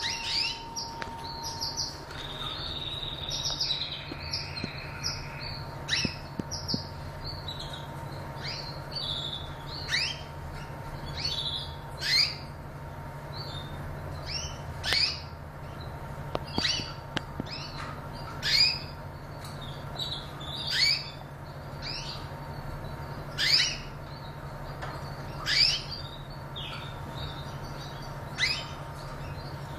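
Gibboso (Spanish Gibbous) posture canary calling in a cage: short, sharp downward-sweeping chirps, one every second or two, over a steady low hum.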